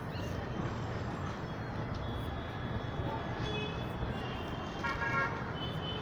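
Steady outdoor background noise with faint, distant vehicle horns tooting, the clearest about five seconds in.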